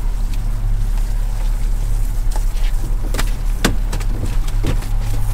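A 115-horsepower outboard motor idling with a steady low hum. A few sharp knocks sound against it about halfway through.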